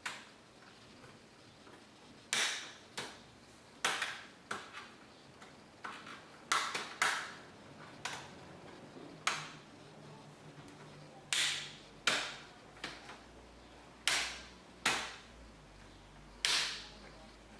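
Plastic laptop screen bezel clips snapping into place as the bezel is pressed home: a string of sharp clicks at irregular intervals, roughly one a second.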